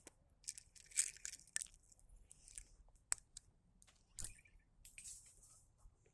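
Campfire crackling: irregular sharp snaps and pops with short hissing bursts, and one louder crack a little past four seconds in.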